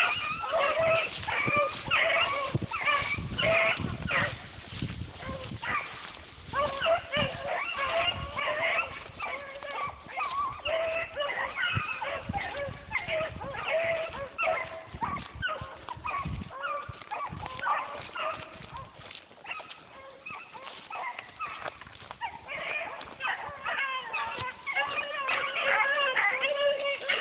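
Several dogs barking, yipping and howling at once, their calls overlapping without a break; the chorus thins out a little past the middle and swells again near the end.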